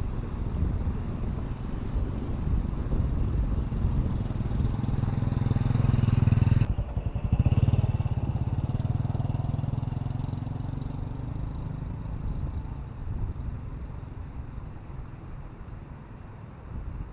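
Motorcycle engine running, its hum building for about six seconds, then a sudden break and change in pitch about seven seconds in, before it slowly fades away.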